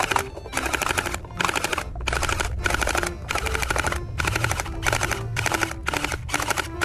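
Toy P90 blaster firing on full auto in short rapid-fire bursts, nearly two a second, each burst a fast run of clicks, while it knocks down a stack of plastic cups.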